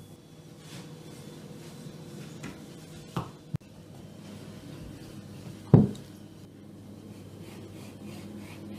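Kitchen handling sounds over a steady low hum: two sharp knocks about three seconds in and a louder knock just before six seconds, like utensils or a board knocking on wood.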